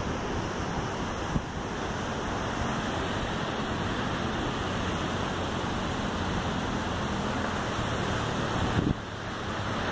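Steady wind noise on the microphone over the low hum of the Marcopolo Invel motorhome's engine as it drives slowly across the campground grass; the noise eases briefly near the end.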